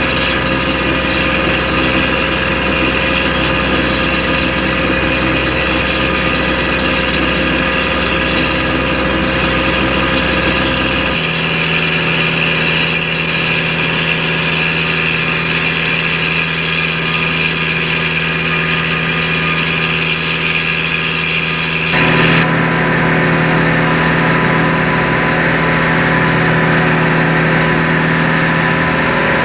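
Fishing boat's engine running steadily, heard from on board. Its sound changes abruptly about eleven seconds in and again about twenty-two seconds in, at cuts in the tape.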